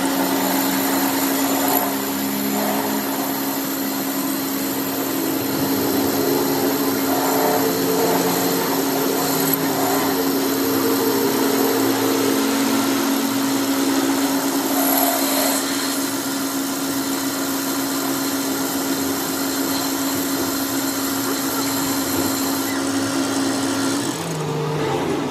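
A workshop machine's motor running with one steady hum and noisy mechanical sound over it; the hum stops near the end.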